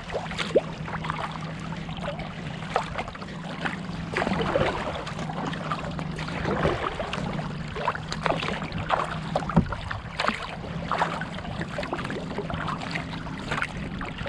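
Kayak paddling: the double-bladed paddle dipping and splashing on alternate sides while water rushes and laps along the inflatable hull, over a steady low hum.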